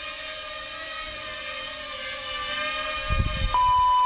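King Kong 100 micro quadcopter's motors and propellers whining steadily, the pitch wavering slightly as it flies. A brief low rumble comes a little after three seconds in, then a loud, steady high electronic beep starts about three and a half seconds in and holds.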